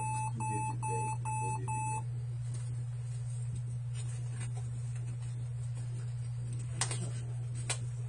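ThinkPad laptop beeping as it powers on and enters BIOS setup: a quick run of short, identical high beeps, about two a second, which stops about two seconds in. A steady low hum runs underneath, and a few sharp clicks come near the end.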